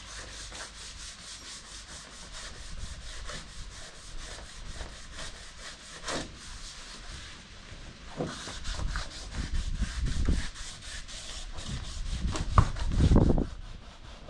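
Sandpaper being rubbed back and forth by hand in quick, even strokes, several a second. Louder thuds and rumbling join in near the end.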